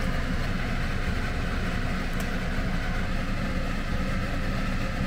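A steady low mechanical hum with a rumble underneath, even throughout, with a faint click about two seconds in.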